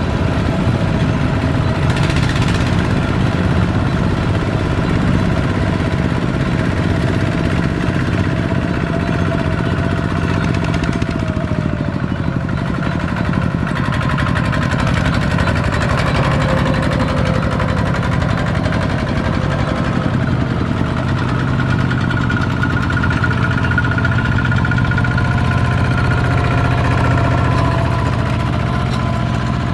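Single-cylinder diesel engines of two-wheel walking tractors (power tillers) running steadily as they pull trailers loaded with sacks of rice.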